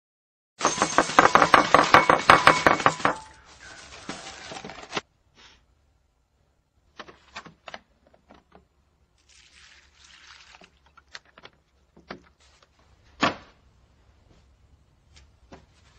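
Dry breakfast cereal poured from a box into a ceramic bowl, rattling loudly for about two and a half seconds and then trailing off more softly. After that come scattered clinks of a spoon on the bowl and crunching, with one sharper clink near the end.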